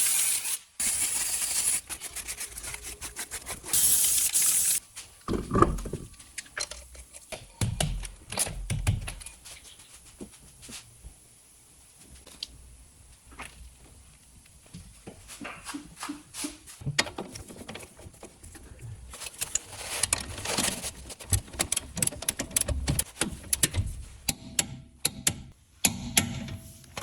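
Metal hand tools and parts clicking, clinking and knocking irregularly during rear shock absorber work on a car, with two loud bursts of hiss in the first five seconds.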